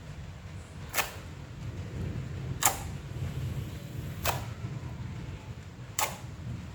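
Slime being pressed and squeezed, giving a sharp pop four times at an even pace of about one every second and a half, over a low steady hum.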